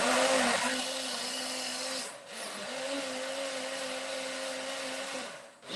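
Countertop blender running, blending chopped pineapple, ginger and turmeric with water, with a steady motor hum. The motor drops out briefly about two seconds in and again near the end, as if pulsed.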